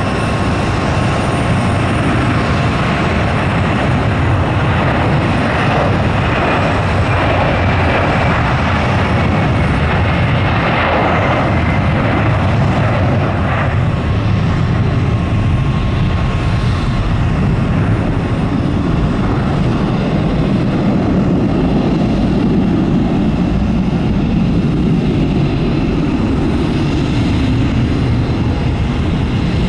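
Boeing 767-400ER's twin GE CF6-80C2 turbofans at takeoff thrust during the takeoff roll, liftoff and climb-out: a loud, steady jet roar with a high whine that sinks slightly in pitch in the first half, giving way to a deeper rumble as the airliner climbs away.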